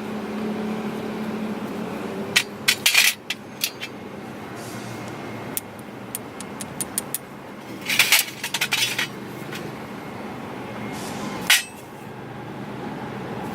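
Sharp metallic clicks and clinks in several short clusters, as of tools and small metal parts being handled, over a steady low engine hum.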